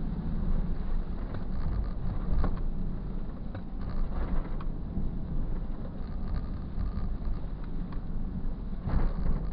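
Cabin noise of a 2004 Nissan Xterra driving in four-wheel drive at about 25 mph on a snow- and ice-covered gravel road: a steady rumble of tyres and drivetrain, with a few short knocks.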